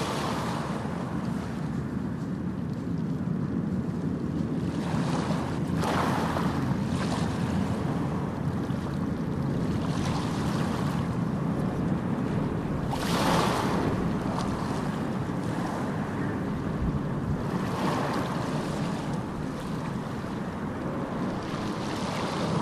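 Steady rushing noise that swells and fades every few seconds.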